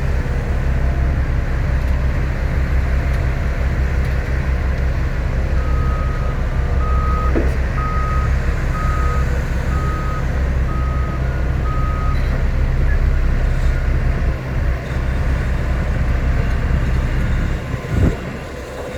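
Heavy construction vehicle's engine running with a steady low rumble. A few seconds in, its reversing alarm beeps seven times, about once a second, then stops. A thump near the end.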